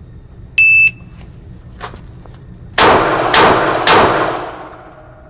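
A shot timer beeps once. Then a Ruger LCR revolver fires three .38 Special rounds about half a second apart, each echoing in an indoor range lane.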